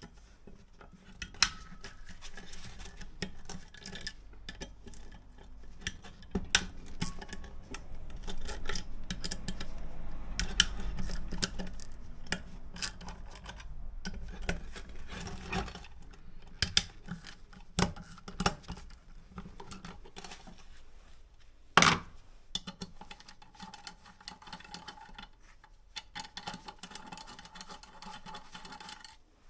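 Irregular metallic clinks, knocks and scraping as the finned metal housing of a water pump's electric motor is handled and worked apart, with one louder knock about three-quarters of the way through.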